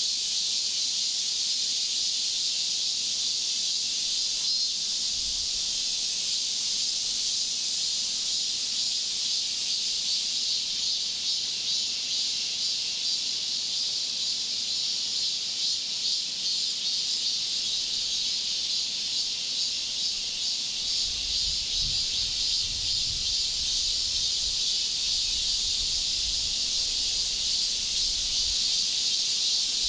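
Steady, high-pitched chorus of insects buzzing, with a fast pulsing shimmer.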